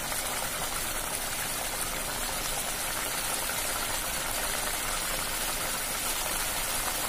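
Pomfret curry in coconut-milk gravy bubbling and sizzling steadily in a kadai over a gas flame as the gravy thickens.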